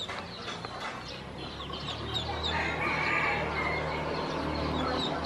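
Ducklings peeping: many short, high, falling peeps repeated over and over. Under them a low steady hum gets louder about two seconds in.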